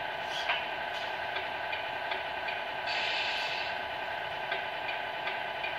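Electronics of a Tamiya 1/14 Scania RC truck running while the truck stands still: a steady electronic hum with light, regular ticks about two or three times a second, and a short hiss about three seconds in.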